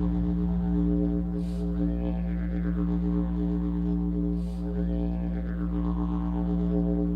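Background music: a steady low drone with rich overtones that swell and sweep up and down about every three seconds.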